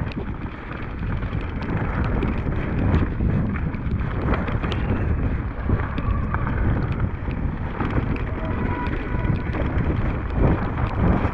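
Wind buffeting the microphone of a mountain bike ridden fast down a rocky gravel trail, with tyres rolling over loose stones and many sharp rattles and clicks from the bike over the bumps.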